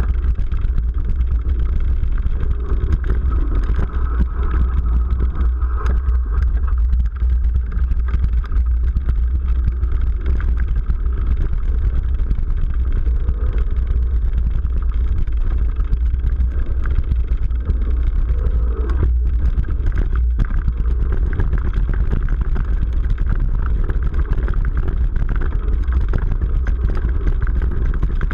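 Mountain bike riding a dirt trail, heard from a GoPro on the bike or rider: a heavy, steady rumble of wind and tyres on the microphone, with frequent small rattles and knocks from the bike over the rough ground.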